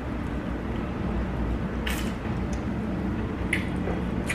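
Mouth sounds of someone chewing a dumpling: a few short, sharp clicks, about two seconds in and twice near the end, over a steady low background rumble.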